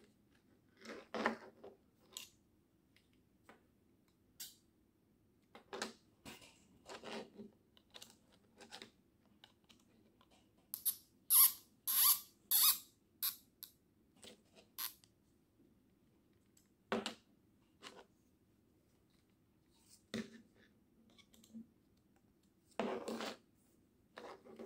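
Small-parts assembly noises: hard plastic wing-mount pieces clicking and knocking against each other and the work surface as screws are tightened with a hand hex driver. About eleven seconds in comes a run of short, high squeaky scrapes, about five in two seconds.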